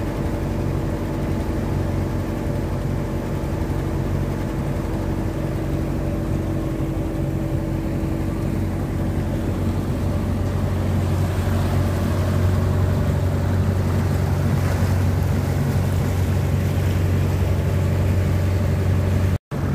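Motorboat engine running steadily under way, a low, even hum, with water rushing along the hull that grows louder about halfway through. The skipper says there is an abnormality in the engine. The sound drops out for a moment just before the end.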